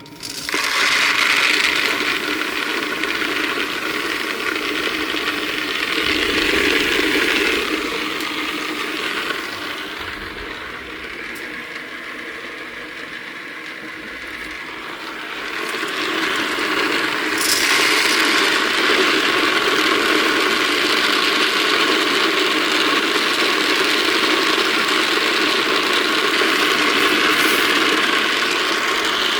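Firework stars tumbling and rattling against each other in the rotating drum of a star-rolling machine, a steady dry clatter that eases for a few seconds partway through and then grows louder again.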